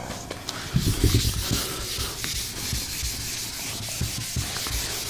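Handheld eraser wiping a whiteboard in quick back-and-forth strokes: a continuous scratchy rubbing with light knocks of the eraser against the board.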